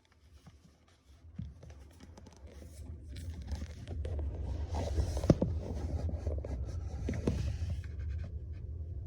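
Panasonic NA-VX7300 drum washing machine spinning up, a low rumble building over a few seconds with rattling and scraping on top, sharpest about five and seven seconds in. This is the abnormally loud spin noise that the owner traces to a part underneath the drum that has melted away.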